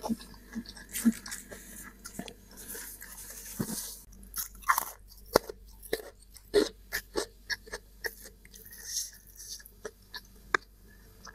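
Close-miked chewing and crunching of spicy instant cup noodles, with irregular wet mouth clicks a few times a second.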